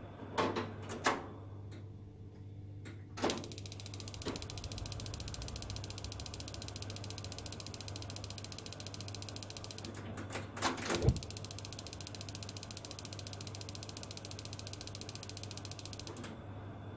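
Rinnai Granada 25 gas space heater starting up: a few clicks, then a rapid mechanical ticking from about three seconds in until near the end as the burner lights, over a steady low hum. A couple of louder clicks come about ten seconds in.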